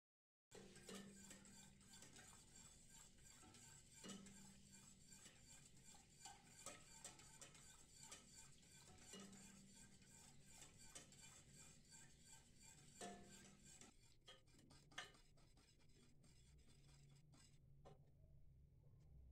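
Faint clicking and scraping of a wire whisk against a stainless steel pot while stirring a thin liquid mixture, the clicks thinning out near the end.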